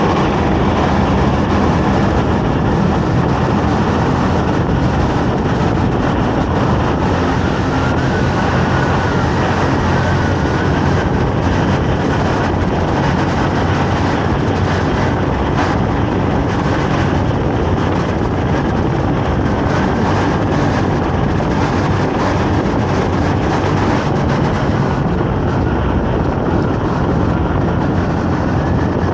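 Honda Navi 110's small single-cylinder engine running steadily under way, mixed with wind and road rumble.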